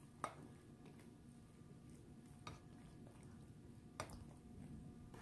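Near silence, with a few faint clicks and soft squishes of a plastic spoon stirring cooked pasta shells in a glass baking dish.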